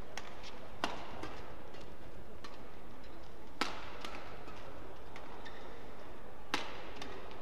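Badminton rackets striking the shuttlecock during a doubles rally: sharp hits, the three loudest spread a few seconds apart, with fainter taps between, over the steady hum of a large hall.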